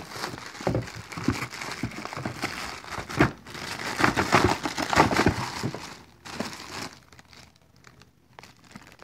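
Cardboard box and packaging rustling and crinkling as the contents are handled and pulled out, with sharp crackles and knocks, dying down about seven seconds in.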